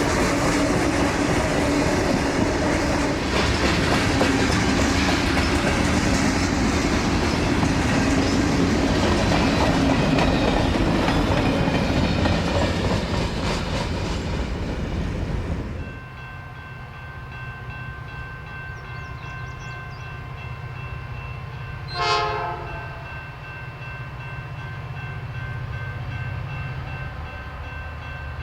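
Freight train led by EMD diesel locomotives passing close, with loud wheel-on-rail clatter over a steady hum. Partway through, the sound cuts abruptly to a quieter diesel rumble, and a brief horn toot sounds about three-quarters of the way in.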